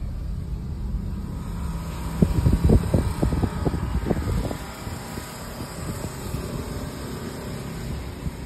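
Car interior road noise: a steady low rumble from the moving car, with a quick run of low thumps about two to four seconds in.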